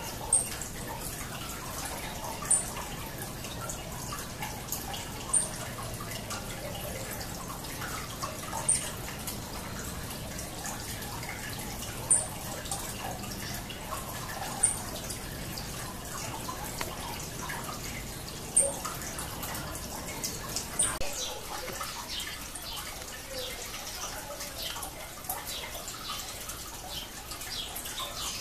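Water dripping and trickling, with a sharp, very short high tick every two to three seconds.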